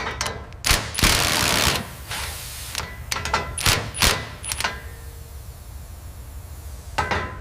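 Metal parts and tools clanking and knocking, a string of separate sharp hits, some with a short metallic ring, and a brief burst of rushing noise about a second in.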